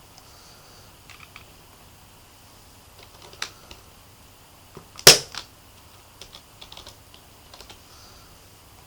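Keys being typed on a Logitech MK250 keyboard: short clusters of soft key clicks, with one much louder knock about five seconds in.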